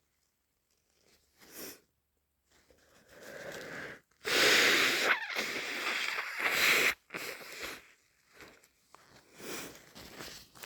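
A person with a head cold sneezing: a breathy build-up of inhales, then a loud wet sneeze about four seconds in, a second loud burst that stops abruptly around seven seconds, and several short sniffs afterwards.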